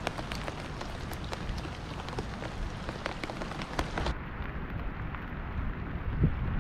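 Rain falling: a steady hiss dotted with many small, sharp drop ticks.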